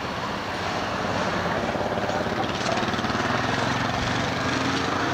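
City street traffic noise with an articulated tram running past: a steady rumble and hiss that grows a little louder after the first second, with a held motor hum showing through in the second half.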